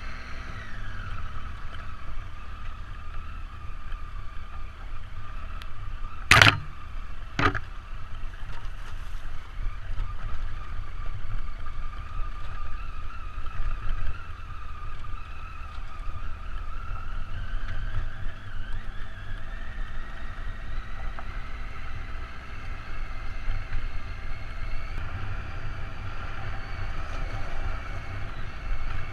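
Triumph Tiger motorcycle engine running on a gravel track, under a low rumble of wind and road noise. Two sharp knocks come about six and seven and a half seconds in, and the engine note climbs gradually in the second half.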